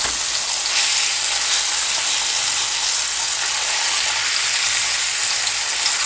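Flour-dredged pork steaks searing in olive oil in a pan on medium heat, just flipped: a steady sizzle.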